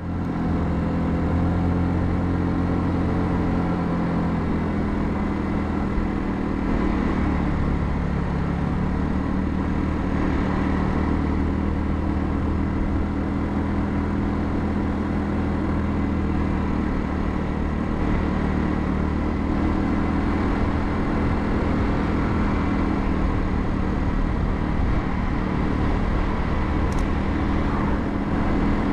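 Royal Alloy GT150 scooter's single-cylinder four-stroke engine running steadily while riding, with a rush of wind and road noise over it.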